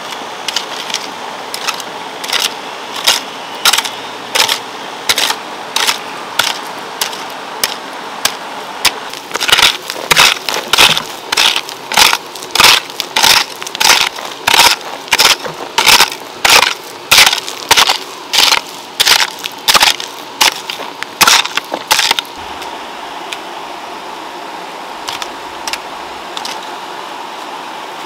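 Hand hoe chopping into loose soil in a steady rhythm of dull strikes, a little more than one a second. About a third of the way in the strokes become louder and quicker, and they stop a few seconds before the end, leaving only a few faint knocks.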